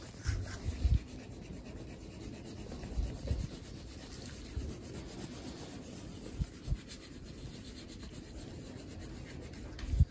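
Wax crayon rubbing on paper in quick up-and-down coloring strokes, a steady scratchy sound. A few dull thumps on the table stand out above it, the loudest near the start and just before the end.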